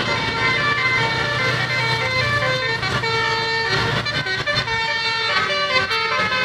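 Telolet basuri musical horn playing a tune: a run of short, stepped horn notes in a melody, over a steady low engine hum.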